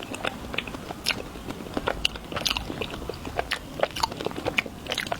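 Close-miked biting and chewing of a chocolate bar: a run of crisp, irregular crunching clicks.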